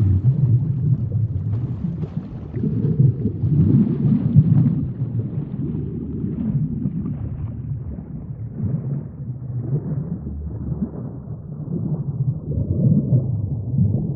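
Underwater sinking sound effect: a low, muffled rumble of churning water with irregular swells, growing steadily duller as its higher tones fade away.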